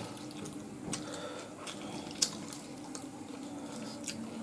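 Quiet, wet eating sounds: fingers mixing rice and fish curry on a steel plate, with scattered small clicks, the sharpest about two seconds in.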